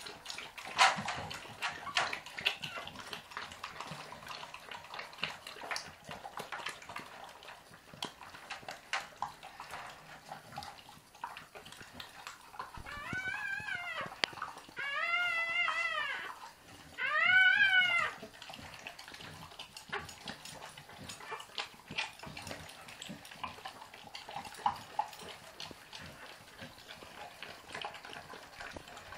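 A mother dog licking her newborn puppy: a run of small wet clicks and slurps. About halfway through come three high-pitched whining cries in a row, each rising and then falling, louder than the licking.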